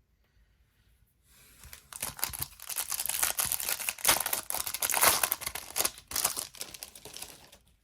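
A Topps baseball card pack wrapper being torn open and crinkled: a dense crackling that starts about a second and a half in and lasts about six seconds.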